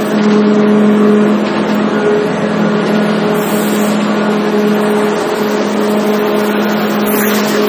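Brickworks clay-preparation machinery running: motor-driven feeder and belt conveyors handling loose clay. It makes a loud, steady hum of constant pitch under a rushing, rattling wash.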